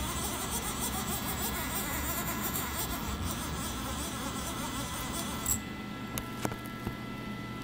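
CNC lathe axis drive motors moving the carriage and cross slide on a handwheel jog, a steady buzzing motor noise that stops about five and a half seconds in, followed by a few faint clicks.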